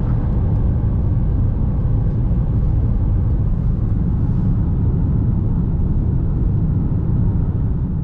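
Car driving: a steady low rumble of engine and road noise.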